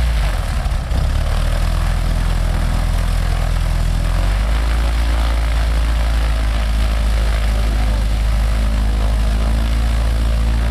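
Fournier RF5 motor glider's Limbach flat-four engine and propeller running just after start-up, a steady idle. Its note changes about four seconds in.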